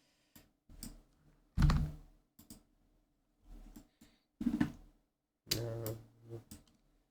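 Computer keyboard keystrokes and mouse clicks, coming in irregular short groups with gaps between, one heavier knock about one and a half seconds in.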